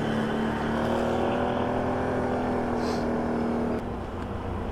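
Can-Am ATV's Rotax V-twin engine running at a steady pitch under throttle, then easing off suddenly near the end.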